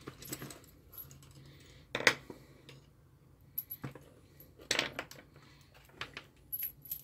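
Soldering-station parts being handled by hand: scattered clicks and light metallic clinks as the iron handle, cable and tips in a zippered case and the power cord are moved. The sharpest click comes about two seconds in.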